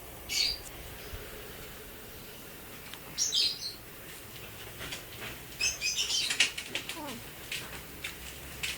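Three short bursts of high-pitched chirping and clicking, about half a second in, about three seconds in, and a longer run around six seconds, over a quiet room background.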